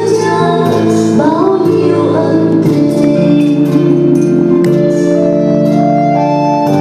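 Music: a song sung over held organ chords.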